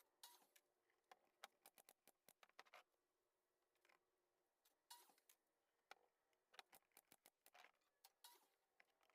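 Faint, irregular clicks and taps with a few brief scraping noises, scattered unevenly throughout.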